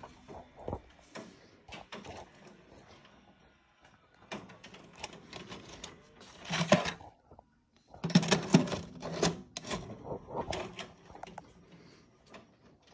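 Irregular clicks, taps and rustles of handling, coming in clusters with quiet gaps between them.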